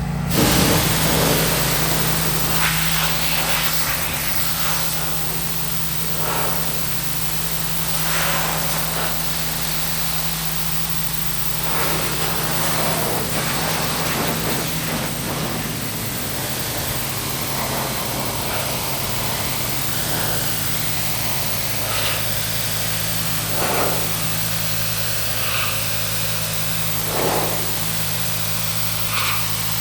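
Engine-driven pressure washer running steadily under load, with the loud hiss of its high-pressure water spray starting suddenly at the very beginning and rising and falling as the jet sweeps across the moss-covered body of a 1949 Ford.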